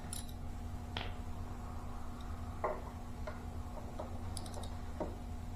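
Scattered light metallic clicks and clinks from handling tools and the drain pan while the hydro unit's oil is drained, over a steady low hum.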